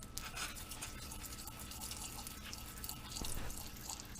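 Lemon juice being poured over sliced goose breast strips: faint pouring and dripping.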